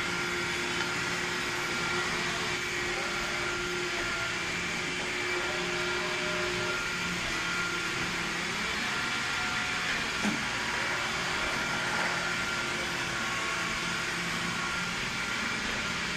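Roborock E25 robot vacuum running: a steady suction hiss with a constant hum and whine, one lower tone dropping out about seven seconds in. A brief knock comes about ten seconds in.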